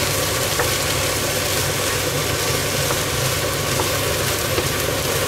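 Bacon, mushrooms and vegetables frying in a pan, sizzling steadily as they are stirred with a spatula, over a steady low hum.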